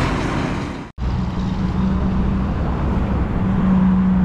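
Road traffic noise from vehicles going past, broken by an abrupt cut to silence about a second in. After the cut, steady traffic continues with a low engine drone that grows stronger near the end.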